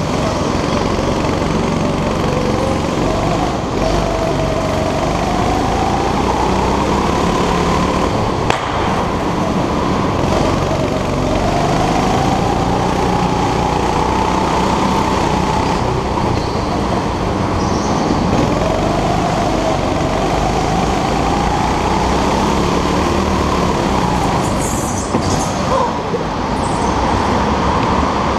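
Go-kart motor heard from on board during a race, its pitch rising as the kart speeds up along the straights and dropping back for the corners, about three times over a steady rumble. A sharp click about eight seconds in.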